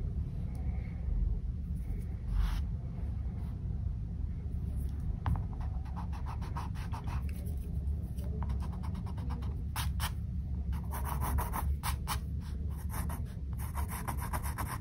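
Pencil scratching and rubbing on a painted canvas in short sketching strokes that come in quick clusters, over a steady low hum.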